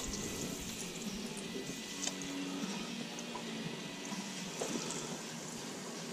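Hot oil in an electric deep fryer sizzling steadily, with small crackles, as coated pieces of tripletail are dropped in one at a time.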